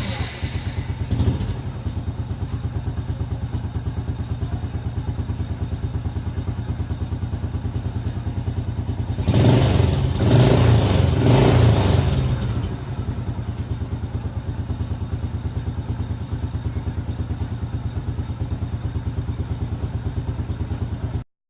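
2004 Honda Supra Fit motorcycle's small single-cylinder four-stroke engine idling evenly after its carburettor service, revved up a few times about ten seconds in and then settling back to idle. The sound cuts off abruptly near the end.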